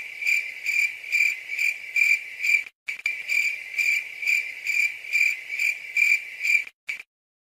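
Cricket-like chirping, a high trilling pulse repeating about three times a second. It drops out briefly about three seconds in, then cuts off abruptly about seven seconds in.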